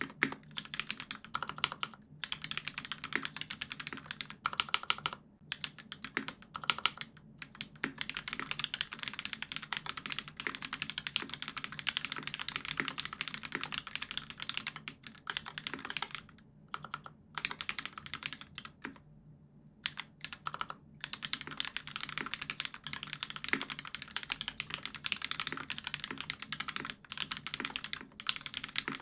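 Continuous fast typing on a custom mechanical keyboard with lubed, broken-in Hyperglide Cherry MX Black linear switches in an aluminium plate and GMK keycaps: a dense run of key clacks with a few short pauses, the longest about nineteen seconds in.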